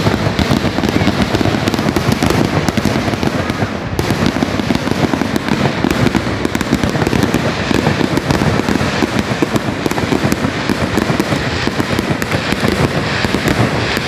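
Fireworks going off in a dense, continuous barrage: rapid overlapping bangs and crackling with no pause.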